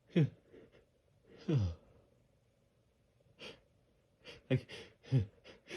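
A person's gasping, sighing breaths as a sneeze builds and is held back: two short falling 'ah' sighs, then a quick run of shaky gasping inhales near the end.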